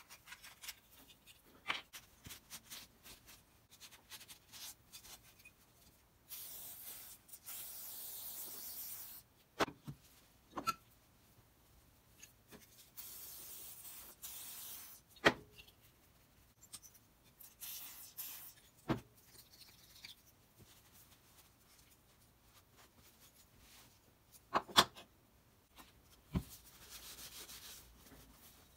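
Hand cleaning of old Stanley No. 5 plane parts: cloth rags rubbing and scrubbing over the metal parts and the wooden tote, in several stretches of scratchy wiping. Several sharp knocks of parts against the workbench come between them.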